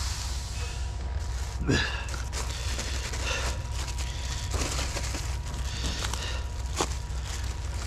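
Plastic bag of concrete reinforcing fiber crinkling and rustling as it is handled, with a louder crinkle a little under two seconds in, over a steady low hum.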